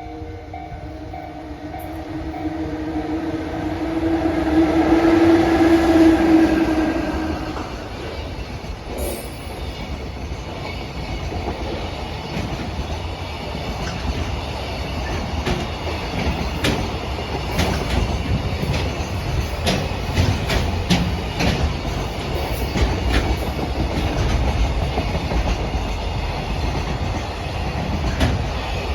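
EF66 100-series electric locomotive passing close by with a loud hum of several steady tones, which stops about eight seconds in. Its train of Koki container wagons follows, its wheels clicking over the rail joints in a long run of clickety-clack.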